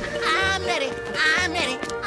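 Cartoon soundtrack music with a steady bass beat, and a high, bleating cartoon voice repeating a short sung phrase about once a second.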